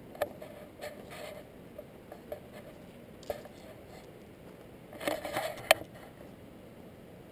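Handling noise from a hand-held camera being moved and set down: scattered light clicks and short rustles, then a louder burst of rustling that ends in one sharp click about five and a half seconds in.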